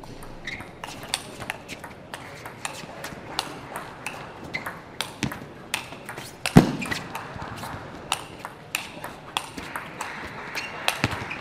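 Table tennis ball clicking back and forth in a long rally, struck by the rackets and bouncing on the table, about one to two clicks a second. A single heavy thump about two-thirds of the way through is the loudest sound, and crowd voices grow louder near the end.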